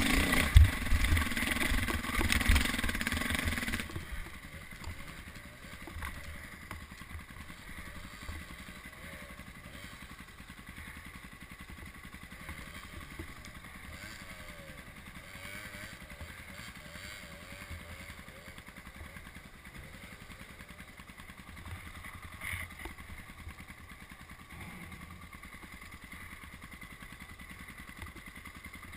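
Off-road motorcycle engine running on a trail ride. It is loud for about the first four seconds, then suddenly much quieter and steady for the rest.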